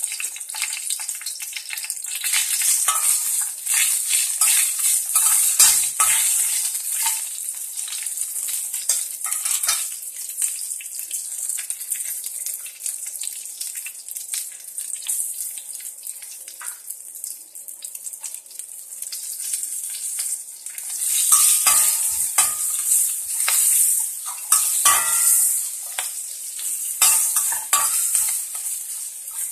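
Dried red chillies and cumin seeds sizzling in hot oil in a stainless steel kadai, with a steady hiss throughout. A metal spoon clinks and scrapes against the pan in two spells of stirring, from about two seconds in and again from about twenty-one seconds in.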